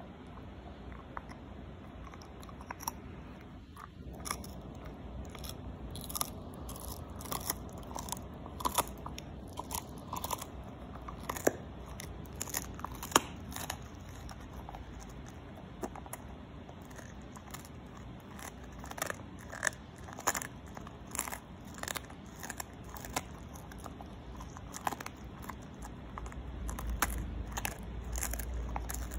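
Husky chewing crunchy food: irregular sharp crunches, several a second, in runs with short lulls between.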